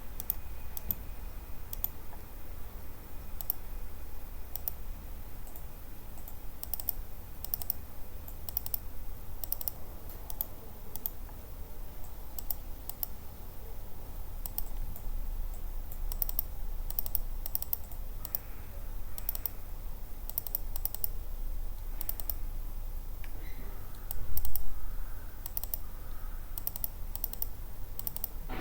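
Computer keyboard and mouse clicks, scattered and irregular, over a low steady hum, with one brief low thump near the end.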